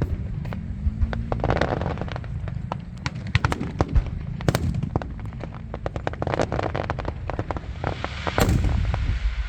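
Fireworks display: a rapid, uneven run of sharp bangs and crackling pops over a low rumble, with a louder, denser burst near the end.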